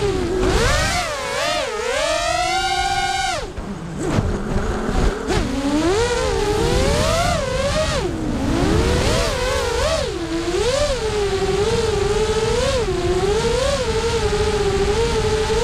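Small FPV racing quadcopter's brushless motors whining in flight, heard from the onboard camera, the pitch rising and falling constantly with the throttle. About two seconds in the whine climbs steadily, then cuts off sharply before picking back up, with a low rumble of rushing air underneath.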